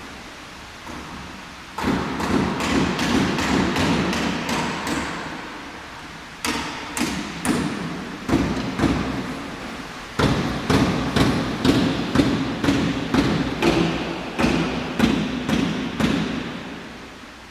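CNC router cutting a cylindrical workpiece on its rotary axis: a quick series of knocks, about two to three a second, that dies away briefly a few times before starting again.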